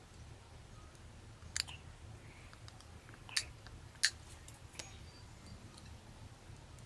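Plastic and metal parts of a half-disassembled Nikon Coolpix AW110 camera clicking and ticking as they are handled, with a few sharp clicks and the loudest about four seconds in.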